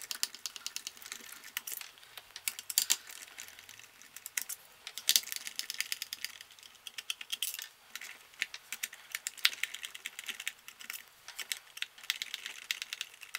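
Cross-head screwdriver backing small screws out of a JJRC R2 Cady Wini toy robot's plastic body: a run of light, irregular clicks and ticks from the screwdriver and the plastic shell.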